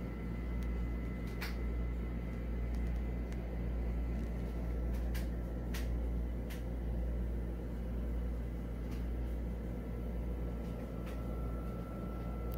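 Steady electrical hum from a plugged-in lighted Lemax Halloween village building, a low hum with a faint high whine over it, broken by a few faint clicks.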